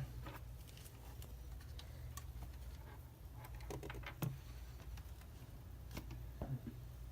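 Faint, scattered clicks and light taps from handling laptop parts and cables, about half a dozen over the stretch, over a low steady hum.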